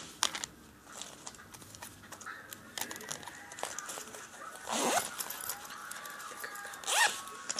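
Small plastic toy props being handled and sorted: scattered light clicks and rustling, with two brief squeaky, voice-like sounds about five and seven seconds in.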